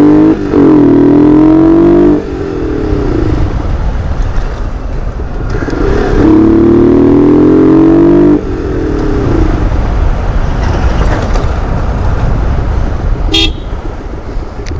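Vehicle horn honked in two long blasts of about two seconds each, a steady note rising slightly in pitch, over the low rumble of engines in traffic.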